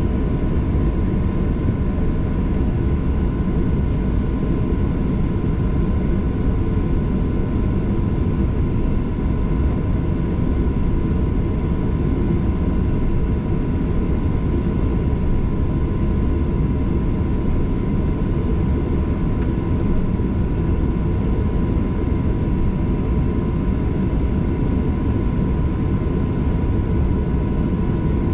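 Boeing 737-800's CFM56 engines heard from inside the cabin at a window seat: a steady, unbroken deep rumble with a thin, constant whine on top.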